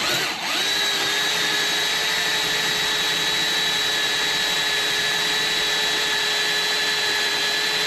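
Hand-held electric drill running steadily at full speed, boring a hole in metal with a larger bit one step up toward half an inch. Its speed dips briefly and picks up again about half a second in.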